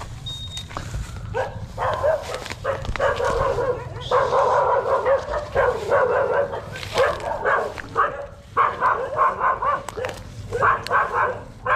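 A dog barking repeatedly in quick runs of short barks and yips, starting about a second and a half in.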